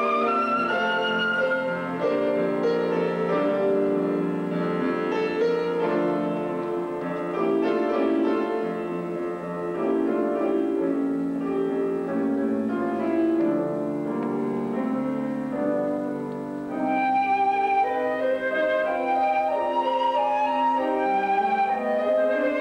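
Sankyo concert flute and grand piano playing a classical duet. The piano chords carry the middle stretch, and the flute melody comes back louder and higher about seventeen seconds in.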